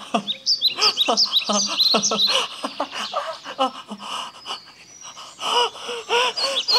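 Short high-pitched vocal noises, gasps and squeals, voiced for sock puppets as they scuffle.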